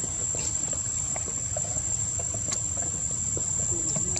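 Insects droning at one steady high pitch, over a low rumble of background noise, with scattered faint clicks.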